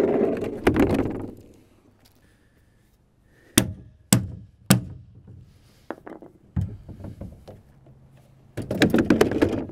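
A large hard-plastic tow sled clattering and scraping on asphalt as it is turned over and shifted, with three sharp knocks about half a second apart in the middle and smaller clicks as its steel hitch bar is fitted.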